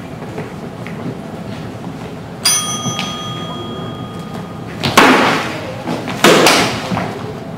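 A bell struck once, ringing clearly for about a second and a half. Then come two loud, sharp blows about a second apart as practice longswords strike in a sparring exchange.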